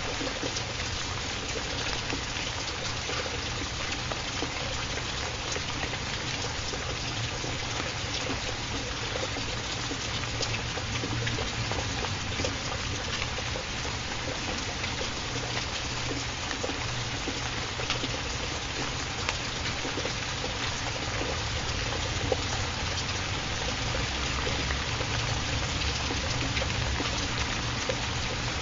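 Rain falling steadily, with water trickling and scattered sharper drops ticking.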